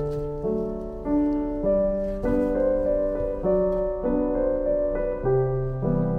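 Gentle background piano music, its chords changing about every half second in an even, light rhythm.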